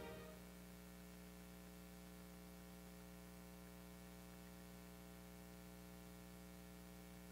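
Near silence: the last piano note dies away at the very start, leaving a steady electrical hum.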